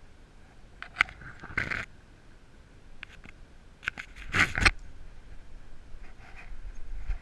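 Scrapes and clicks from the camera rig strapped on a dog's back, rubbing and knocking as the dog shifts and moves off: a click about a second in, a short scrape just after, and a louder run of scrapes a little past the middle.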